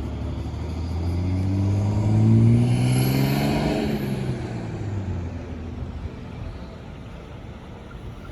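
A motor vehicle driving past: its engine and tyre noise grow louder, peak about two and a half seconds in, drop in pitch as it goes by, and fade away.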